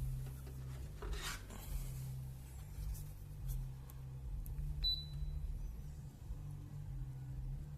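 Dreo Cruiser Pro tower fan running, its airflow buffeting the microphone as an uneven low rumble. A brief rustle comes about a second in, and a single short high beep sounds about five seconds in.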